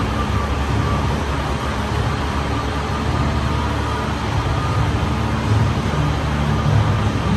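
Backlot tour tram moving, heard from on board: a steady, even rumble of its drive and rolling wheels.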